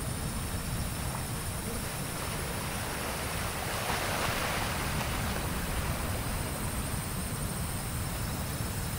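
Wind rushing over the microphone with a low rumble, over a steady wash of ocean surf that swells about four seconds in.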